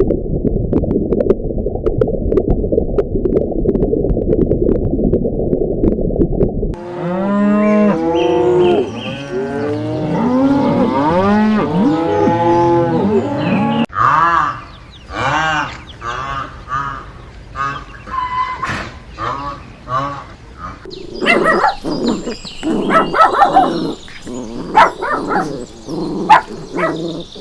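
Cattle mooing, several overlapping calls that rise and fall in pitch, starting about a third of the way in after a stretch of dense low rumbling noise. In the second half the calls turn shorter and higher.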